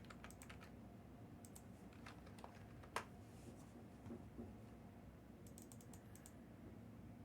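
Faint, scattered typing clicks on a computer keyboard, with one sharper click about three seconds in.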